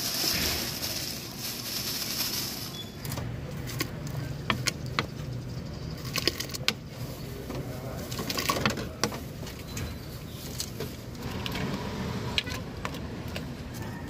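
Vegetables tipped into a large steaming pot of boiling broth, with a strong hiss for the first few seconds. After that come scattered sharp clicks of a metal ladle against the pot, over a steady low hum.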